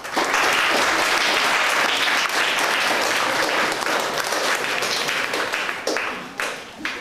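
Audience applauding: the clapping starts at once and dies away near the end.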